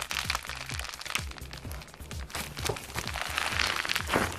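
Foam-bead crunchy slime squeezed and folded by hand, crackling and popping in dense runs that grow denser in the second half. Background music with a steady bass line plays under it.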